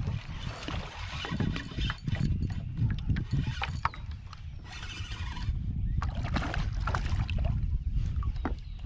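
Spinning reel being cranked in bursts with clicks, as a hooked catfish is reeled in on a bent rod toward the kayak.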